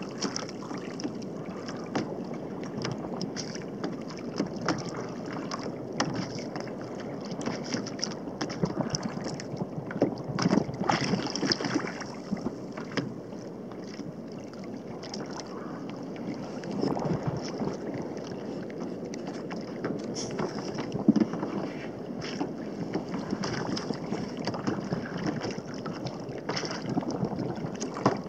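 Small waves lapping and slapping irregularly against a fishing kayak's hull, with wind buffeting the microphone.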